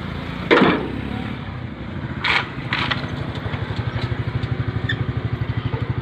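An engine idling with an even pulsing beat, about eight beats a second, growing louder after about four seconds. A sudden loud noise comes about half a second in, and two short knocks a little after two seconds.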